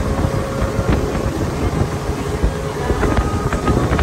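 Wind buffeting the microphone aboard a small motorboat under way, over the steady running of the boat's engine.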